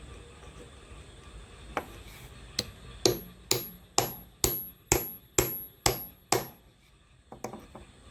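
A hammer striking metal about ten times: two lighter blows, then a steady run of heavier blows about two a second, each with a short high metallic ring. Two faint taps follow near the end.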